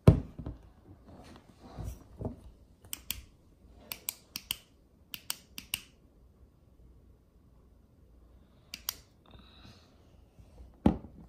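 Sharp clicks and light taps from handling things on a desk, with a low thump at the start and another near the end.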